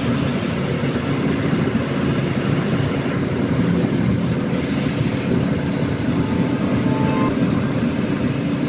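Steady rumble of engine and road noise heard from inside the cabin of a moving bus.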